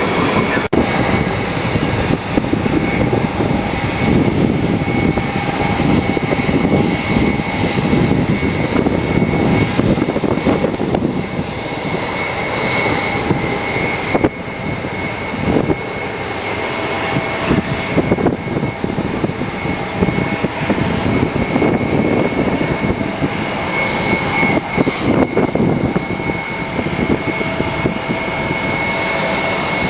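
Jet aircraft engines running at an airport: a steady high turbine whine over a rumble that rises and falls.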